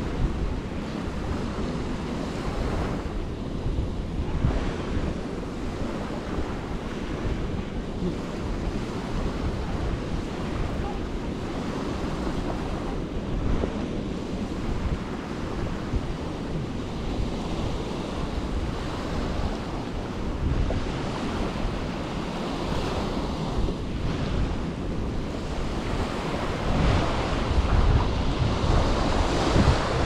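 Small waves washing onto a sandy beach, a steady surf hiss mixed with wind buffeting the microphone, the wind gusting harder near the end.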